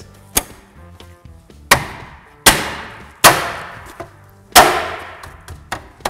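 Hand smacking a Toyota Prius hubcap to snap it onto the wheel: about five sharp smacks, each with a short rattling ring-off, the loudest near the end.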